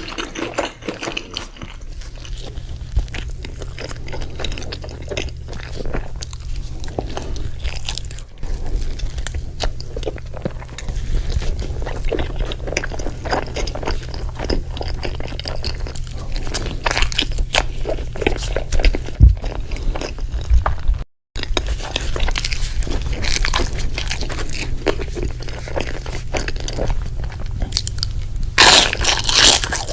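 Close-up chewing and biting of a burger sandwich: a dense run of irregular crunches and small moist clicks over a steady low hum. The sound cuts out completely for a moment about two-thirds through, and a louder crunchy burst comes near the end.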